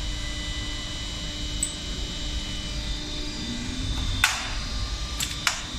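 Steady electrical hum of the fastener insertion press standing powered on, with a sharp metallic click about four seconds in and two more close together about a second later as small steel tooling parts are handled on the worktable.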